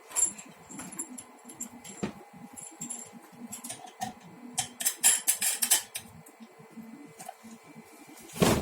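Scattered clicks and small metallic rattles of coaxial cable connectors being handled as a 50-ohm dummy load is swapped for a 25-ohm one, with a quick run of clicks about five seconds in and a louder knock near the end.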